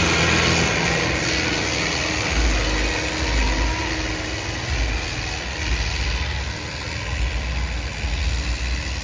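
HMT 5911 tractor's diesel engine working under load, pulling a trolley heaped with soil, with an uneven low rumble that pulses from a few seconds in.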